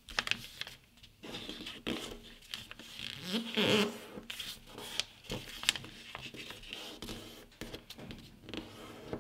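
A sheet of A4 printer paper rustling, crinkling and sliding as it is folded along its creases into a water bomb base, with short crisp clicks as the folds are pressed down; the loudest rustle comes about three and a half seconds in.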